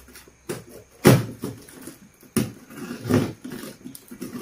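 Box cutter slicing into a taped cardboard box: a few sharp cutting and tearing noises, the loudest about a second in.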